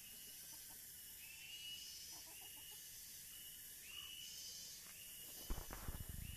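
Faint outdoor garden ambience: a steady high insect-like hiss, with a short chirp repeating about once a second. A brief cluster of low rumbling knocks comes near the end.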